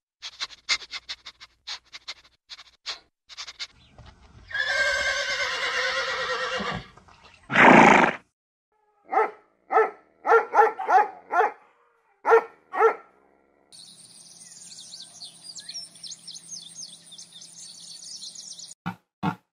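A run of different animal sounds: quick clicks for the first few seconds, a noisy rasp and one loud short blast, then a dog's short pitched barks and yelps around the middle, and a high steady chirring in the last few seconds.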